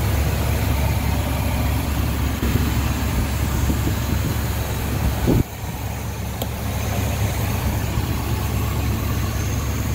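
1974 Chevrolet C30 wrecker's engine idling steadily, running again after sitting about five years. About five and a half seconds in the sound gives a brief sharp peak and then drops abruptly to a quieter level.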